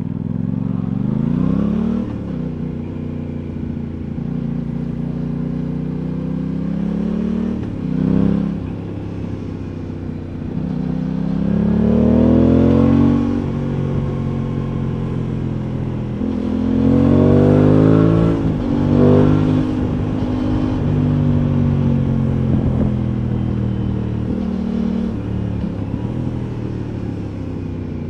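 Aprilia Tuono 660's parallel-twin engine running under way, rising in pitch through several accelerations with short dips between gear changes, then settling and slowly falling.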